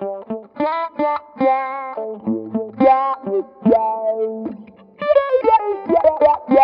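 Electric guitar played through an Electro-Harmonix Q-Tron Plus envelope filter set to high-pass mode: picked notes and short phrases, each attack sweeping the filter so the tone glides like an auto-wah. About five seconds in the playing turns into a quicker run of notes.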